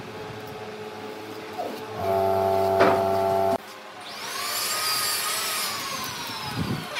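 Machinery: a steady motor hum runs for about a second and a half from two seconds in and cuts off abruptly, then a whine rises and slowly falls in pitch over the last three seconds.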